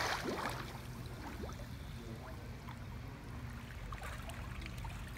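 Swimming-pool water lapping and trickling softly as the surface settles after a splash, over a low steady hum.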